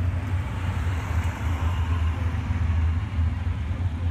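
A vehicle engine idling: a steady low rumble with an uneven, quickly wavering pulse.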